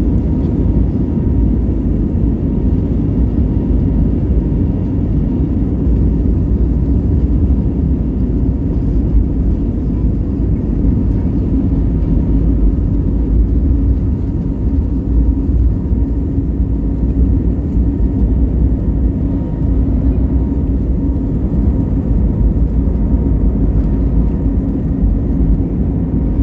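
Steady low rumble of a jet airliner's engines and rushing air during takeoff, heard inside the cabin, with a faint steady hum over it.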